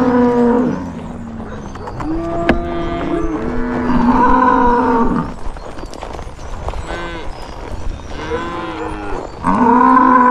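Several cattle mooing, long drawn-out calls one after another, some overlapping. There is one sharp click about two and a half seconds in.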